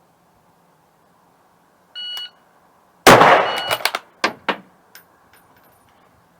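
A short electronic beep, then about a second later a single loud rifle shot from a .308 bolt-action rifle, echoing for about a second. Two quick sharp clicks follow as the bolt is worked.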